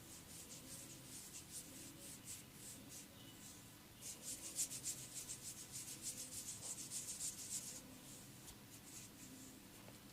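Massage hands rubbing in quick rhythmic strokes, a soft scratchy swish with each stroke. The strokes get louder and faster, about four a second, from about four seconds in until nearly the end.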